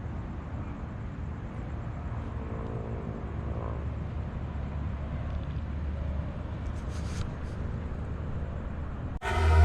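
Steady outdoor background noise, mostly a low rumble. Loud electronic dance music cuts in abruptly near the end.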